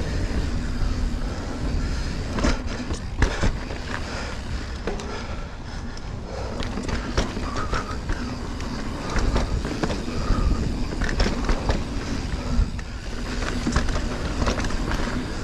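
Mountain bike riding over dirt singletrack: a steady low rumble of the tyres rolling, broken by frequent clicks and clatters from the bike's chain and frame over bumps.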